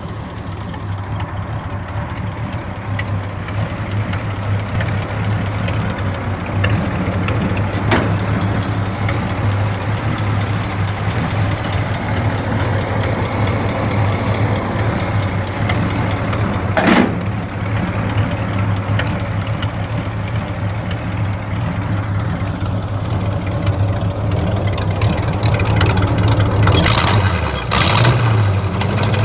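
Ford tractor's flathead V8 engine idling steadily, with a few brief sharp noises over it, one near the middle and two close together near the end.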